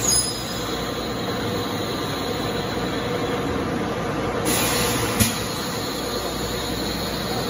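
HEM 1200A automatic horizontal band saw running, its blade cutting steadily through round metal bar stock with an even mechanical hum. About four and a half seconds in, a brief brighter hiss ends in a sharp click.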